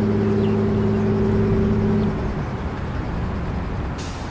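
A nearby engine hums steadily over low outdoor rumble and cuts off about two seconds in.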